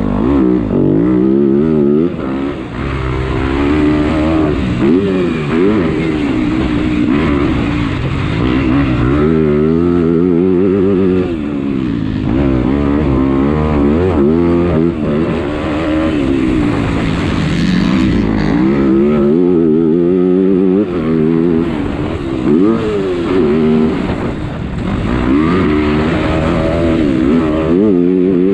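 MX2-class motocross bike engine heard up close from the bike, revving hard and dropping again and again as the rider accelerates out of turns, shifts and rolls off around a dirt track.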